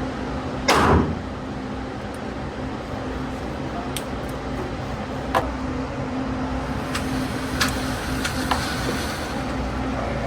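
A single loud gunshot about a second in, with a brief echo, then several fainter sharp cracks and knocks over a steady low hum.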